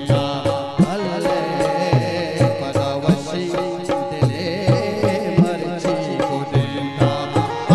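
Live Balochi folk music: a harmonium and a benju play a winding melody over a steady hand-drum beat.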